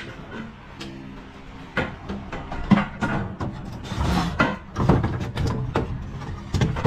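Wooden knocks and clattering from a laminated marine-plywood folding cage as its lid is opened and its pine slat panel is pushed and tilted inside, starting about two seconds in, with faint background music.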